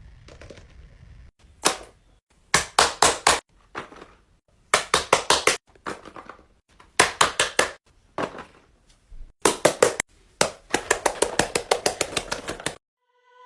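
Fidget toy popping in quick runs of four or five sharp pops separated by short pauses, with a longer, faster run near the end.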